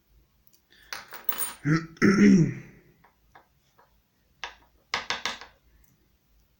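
Small metal lock parts clicking and clinking as a pin-tumbler door cylinder is taken apart. There are a few sharp clicks about a second in, scattered light ticks, then quick clusters of clinks near the end.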